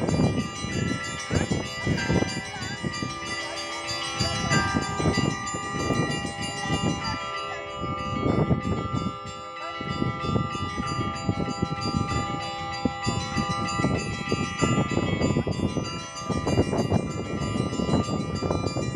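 Russian church bells ringing a full peal: several bells are struck over and over in a rolling rhythm, and their tones hang on between the strikes.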